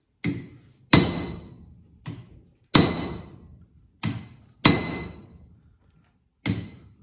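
Hand hammer striking a hot cutter to cut the tang off a heated steel file. The blows come in pairs, a light tap then a heavier blow: three pairs, with a fourth tap near the end. Each blow has a short metallic ring that fades.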